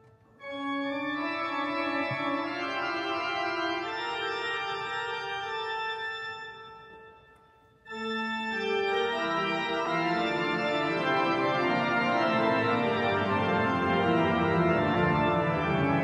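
Pipe organ playing sustained chords in a large, echoing cathedral. One phrase dies away about six seconds in, and a fuller, louder passage begins just under two seconds later.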